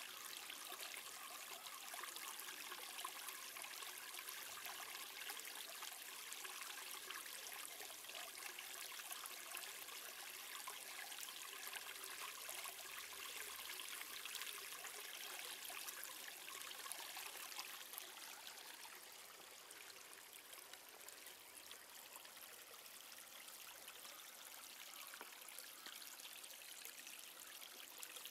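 Faint, steady outdoor background hiss, much like distant running water, a little quieter for a stretch after the middle; no distinct sound from the playing cats stands out.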